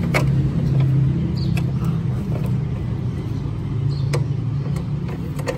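A steady low hum of an engine running, with a few sharp clicks scattered through it.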